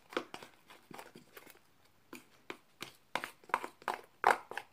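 Fluffy slime (glue, shaving cream and activator) being stirred in a bowl as it clumps together: irregular short clicks and pops, the loudest a little after four seconds in.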